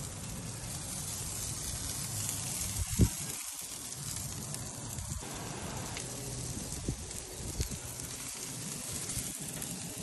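Sliced onions, diced bacon and potato rounds sizzling steadily on a hot flat-top BBQ griddle, with one sharp knock about three seconds in and a few fainter clicks later.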